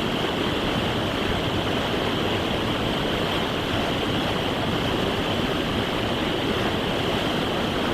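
Steady rush of fast-flowing creek water, an even unbroken noise with no distinct splashes.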